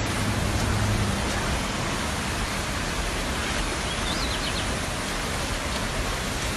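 Steady, even rush of heavy rain or floodwater. A low hum is heard in the first second or so, and a brief high chirp comes about four seconds in.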